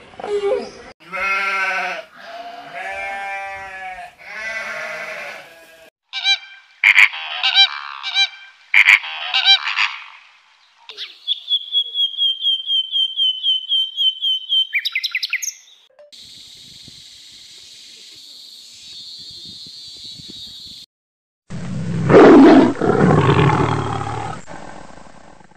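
A sequence of animal calls: grey crowned crane calls, a songbird singing a fast run of repeated whistled notes, then a faint hiss. Near the end comes the loudest part, a tiger's low growl.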